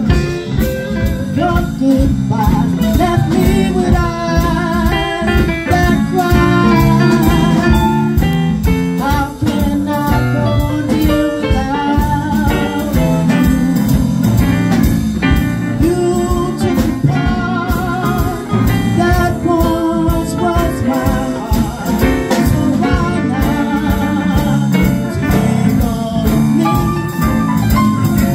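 A woman singing a jazz ballad with vibrato over a jazz accompaniment with a steady drum beat.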